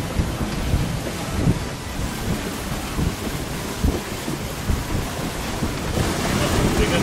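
Strong wind buffeting the microphone with an uneven low rumble, over the rush of sea and water along the hull of a sailing yacht running fast in about 20 knots of wind.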